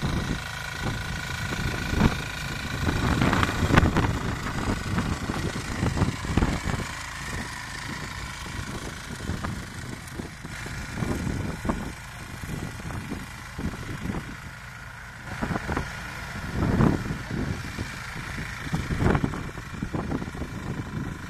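Land Force walk-behind cultivator's small engine running steadily under load as it tills furrows and ridges, with uneven low rumbling surges over it.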